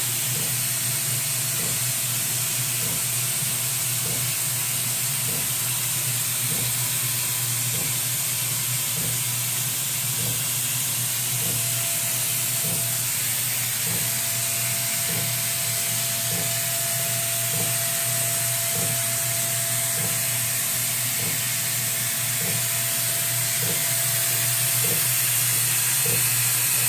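Homemade wooden vacuum engine with PVC-pipe pistons, running on a vacuum cleaner's suction: a steady hiss and hum with a soft knock about every 0.7 s as the engine turns over. A faint steady tone comes in about halfway through.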